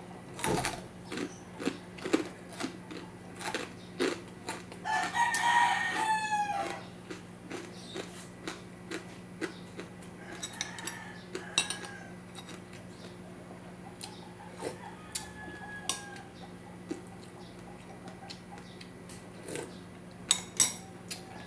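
A rooster crows once, about five seconds in, with fainter calls around ten and fifteen seconds. Sharp clicks of cutlery and dishes from eating run throughout.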